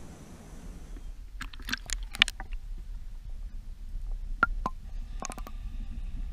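Muffled underwater sound as a released largemouth bass swims off beside the camera: a steady low rumble with scattered sharp clicks and knocks. A faint steady whine comes in about five seconds in.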